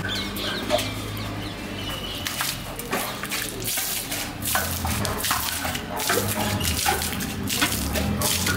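Water flung by hand from a steel pot, splashing onto the pavement and wall in a quick irregular series of splashes, over a steady low hum.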